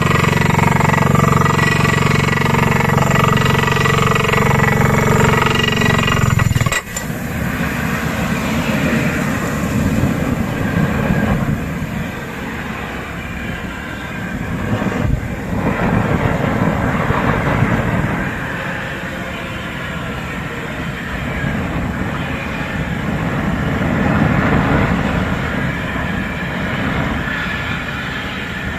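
Borehole drilling rig running while it drills with air flushing, blowing dust and cuttings out of the hole. A steady engine hum changes abruptly about seven seconds in to a rougher, noisier drilling sound that swells and eases.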